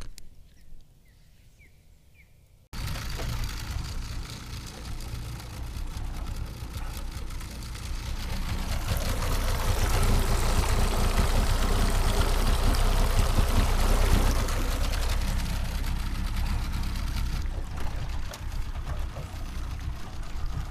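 Small boat underway on a river: its motor running, with water rushing past the hull and wind on the microphone. The noise starts suddenly about three seconds in, is loudest in the middle and eases off near the end.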